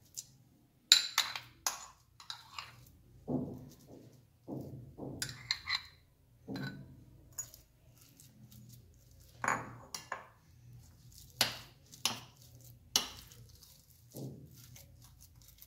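Metal spoon clinking and scraping against a glass bowl while mashed boiled potato and thick green vegetable paste are mixed: irregular sharp taps, about a dozen, with duller soft knocks in between.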